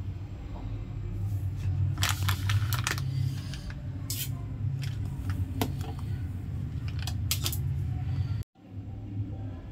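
Plastic noodle packet crinkling over a steady low kitchen hum, then scattered sharp clinks while noodles cook in a steel pot of boiling water. The sound cuts out briefly near the end.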